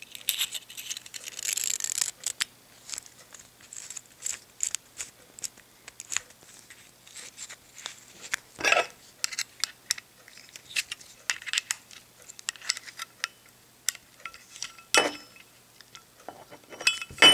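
Small metal clicks and scrapes from a Zippo lighter insert being handled as its flint spring and screw are put back and screwed in, with two louder clicks partway through.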